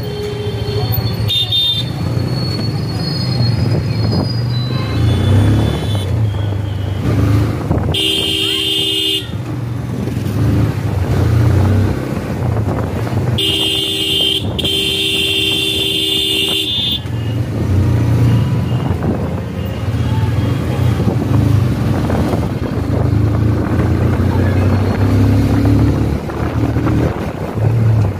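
A motorcycle runs along a street with a steady engine and road drone. A vehicle horn sounds twice: a blast of about a second roughly a third of the way in, then a longer one of about three seconds, briefly broken, around the middle. The horns are the loudest sounds.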